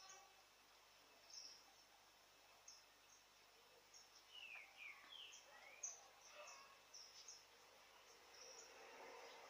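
Near silence with faint, high bird chirps repeating throughout, and a few short sliding bird calls about halfway through.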